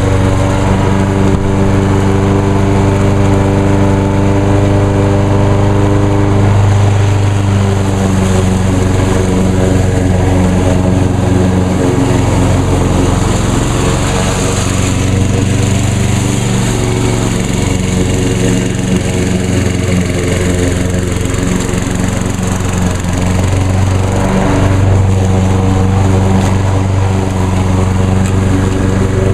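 The Briggs & Stratton engine of a 2010 Craftsman EZ2Walk walk-behind mower runs steadily while cutting tall, thick grass. Its note wavers a little as the load changes.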